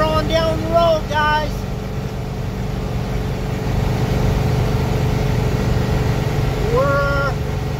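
International tow truck's 7.3 IDI V8 diesel running steadily at highway speed, heard from inside the cab as a low drone with road noise. Short voice sounds come at the start and again about seven seconds in.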